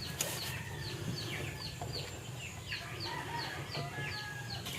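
Chicks peeping: a steady string of short, high peeps, each falling in pitch, about three a second.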